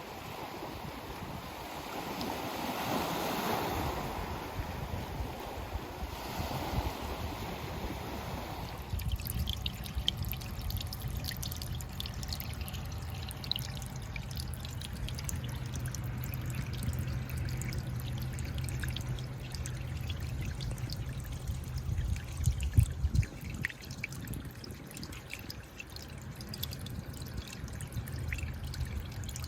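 Sea water washing in as a wave, then from about nine seconds in trickling and dripping away, with a low steady rumble of surf underneath. A louder splash comes about two-thirds of the way through.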